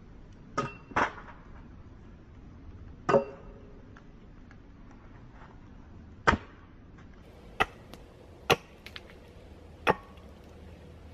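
Axe chopping knots and twigs off a wooden pole held upright on a stump. There are seven sharp strikes at uneven intervals, with faint ticks between them.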